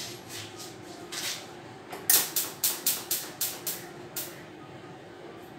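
A quick run of about eight sharp taps, roughly four or five a second, starting about two seconds in, with single taps a little before and after, over a faint steady hum.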